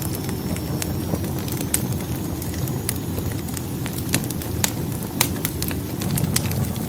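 Wood fire burning in a fireplace: a steady low rumble of flames with irregular sharp crackles and pops of the burning logs.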